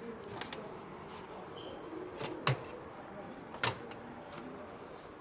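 Two sharp knocks about a second apart, with a faint background hum between them.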